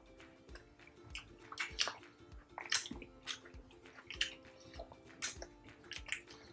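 Wet chewing and lip-smacking of people eating saucy braised pork and milkfish sisig by hand, in short irregular smacks and clicks, a few each second.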